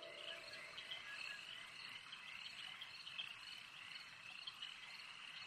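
Faint night-time chorus of insects and frogs: a steady high chirring with short chirps repeating irregularly.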